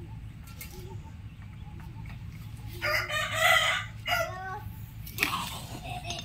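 A rooster crows once, starting about three seconds in and lasting about a second and a half, over a low steady background hum.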